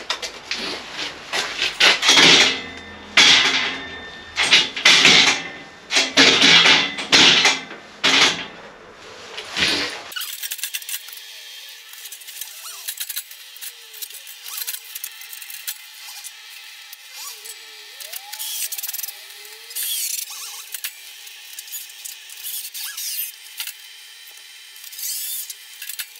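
Cordless drill driving stainless steel screws into a steel gate frame, run in a series of short bursts. About ten seconds in the sound changes abruptly to a quieter, thinner stretch with faint squeaks.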